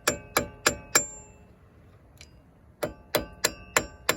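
Hammer tapping a steel part out of a truck's front wheel hub assembly: sharp metal-on-metal strikes that ring. Four quick blows, a pause of about a second and a half, then another run of five, about three a second.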